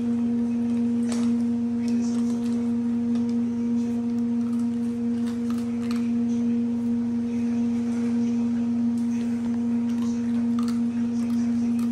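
A steady low hum on one pure tone with fainter overtones, over faint crunches and clicks of a puppy eating dry kibble from a stainless steel bowl.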